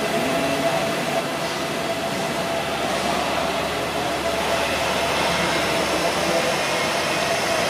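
KiHa 183 series diesel multiple unit rolling slowly into the platform, its diesel engines running with a steady drone and a faint steady whine.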